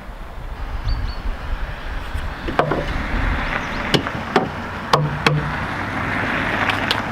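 Several sharp knocks on wood, about five spread over a few seconds, over a steady low rumble, as wooden cabinet parts are worked and fitted.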